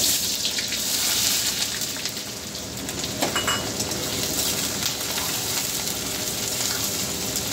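Sliced raw onions sizzling as they hit hot mustard oil with cumin seeds in a kadai, starting suddenly and loudest in the first second or so, then settling into a steady frying hiss as they are stirred.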